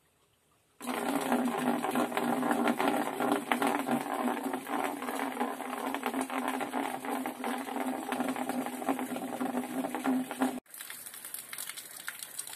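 An old car radiator cooling-fan 12-volt electric motor starts when it is connected to a cordless drill battery about a second in. It runs at a steady speed, driving a rope pump through a belt, with a constant hum and a fast mechanical rattle. The sound cuts off abruptly about two seconds before the end, and a quieter running sound follows.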